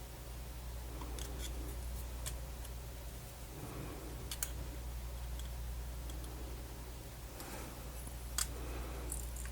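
Small, sharp, scattered clicks and taps from handling the tiny parts and ribbon connector of a MiniDisc player during reassembly, the loudest about eight seconds in, over a steady low hum.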